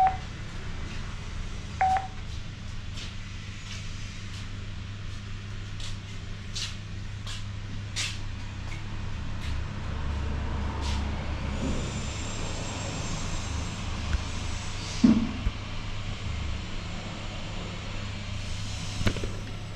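Intercom handset giving two short electronic beeps about two seconds apart, followed by a series of light button clicks, over a steady low electrical hum.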